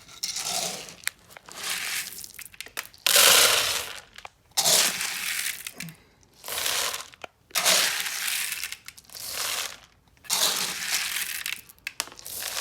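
Repeated crinkling and rustling, as of something crinkly being handled, in about eight bursts of half a second to a second each, the loudest about three seconds in.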